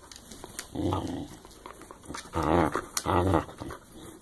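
Dog growling in three short grumbles during rough play over a ball, with a few light clicks between them.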